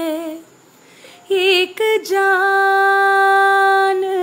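A woman singing a Hindi romantic song solo, without accompaniment. A held note fades out about half a second in, and after a short break comes a quick wavering phrase and then a long, steady held note.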